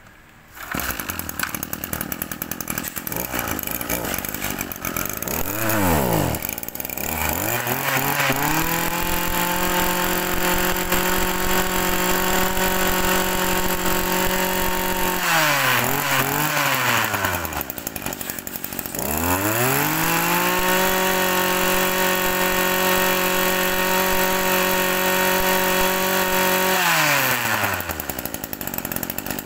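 Small two-stroke brush cutter engine comes on about half a second in and idles, then is throttled up twice to a high, steady whine held for several seconds each time, with quick throttle blips in between, dropping back to idle near the end.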